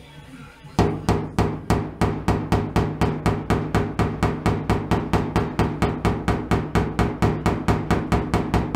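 A wooden-handled body hammer tapping evenly and fast on the Triumph Vitesse's primed steel body panel, about four blows a second starting about a second in, the metal ringing under each blow.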